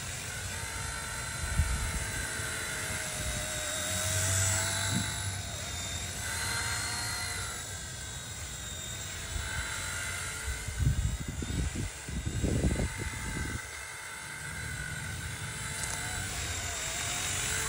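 Small electric RC helicopter's motors whining and its rotor buzzing as it flies low, the pitch rising and falling with the throttle. Wind buffets the microphone in low rumbles now and then, most strongly about two-thirds of the way through.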